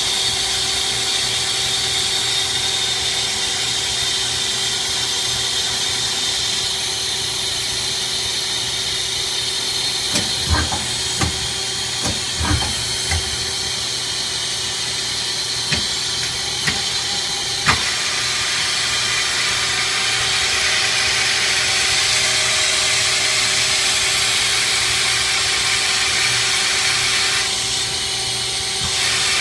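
CNC lathe turret with live rotating tooling running: a steady machine hum and hiss with several steady tones. Between about 10 and 18 seconds in there is a run of sharp clunks.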